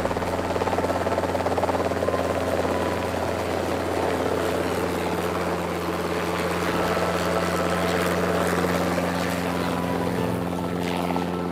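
Small helicopter's rotor and engine running steadily as it lifts off and flies low.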